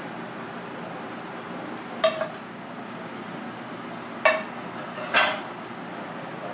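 Metal kitchen utensils clinking against a ceramic bowl and pan: a pair of sharp clinks about two seconds in, then one at about four and one at about five seconds, over steady background noise.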